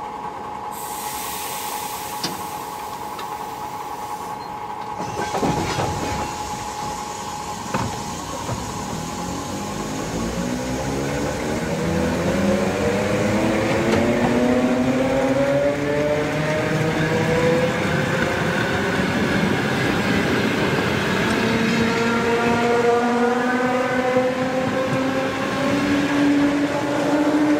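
Electric train gathering speed from the platform, its traction motor whine rising steadily in pitch and growing louder over the last two-thirds. Before that there is a steady high tone and a couple of clicks.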